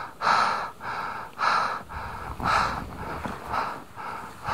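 A climber's heavy breathing, quick breaths in and out about one to two a second, from the effort of climbing at altitude.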